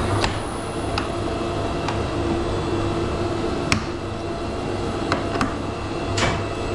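Plastic parts of a Mitsubishi wall-mount mini split indoor unit clicking and tapping as they are worked back into their clips, about seven short sharp clicks, the sharpest a little under four seconds in. Under them runs a steady low hum.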